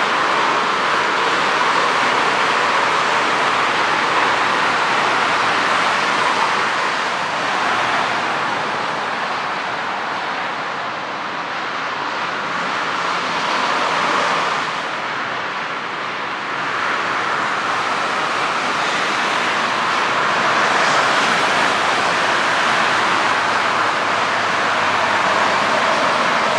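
CFM56-7B jet engines of a taxiing Boeing 737-800 at low taxi thrust: a steady distant rushing that dips a little in loudness midway.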